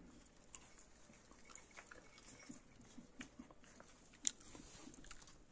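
Near silence with faint, scattered clicks of someone chewing, and one sharper click about four seconds in.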